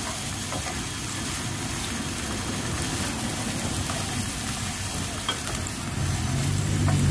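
Coarsely chopped aromatics with galangal, lemongrass and kaffir lime leaves sizzling in hot oil in a frying pan, stirred with a spatula that scrapes lightly now and then. A low hum grows in near the end.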